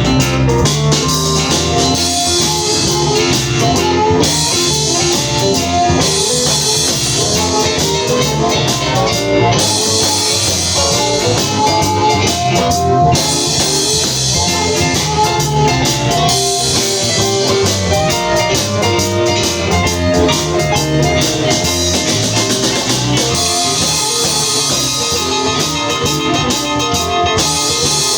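Band playing an instrumental stretch of a blues song, with guitar over a drum kit, no singing.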